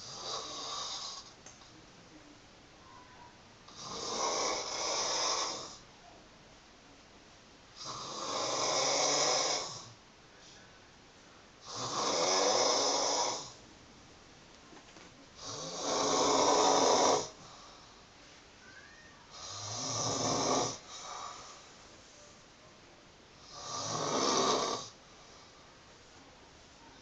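A woman snoring in her sleep, her loose lips flapping with the breath. Seven snores come at an even pace, about four seconds apart, each lasting a second or so.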